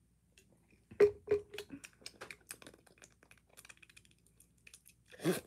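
Plastic cap and bottle of a Prime sports drink being handled: two sharp knocks about a second in, then a scattered run of light clicks and taps, and a louder burst right at the end.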